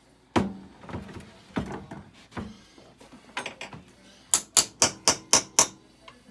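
Knocks and taps on an upturned stainless steel mixing bowl sitting on a wooden cutting board, to free a lasagna dome turned out onto the board. A few heavier knocks with a short metallic ring come first, then six quick, sharp taps in a row near the end.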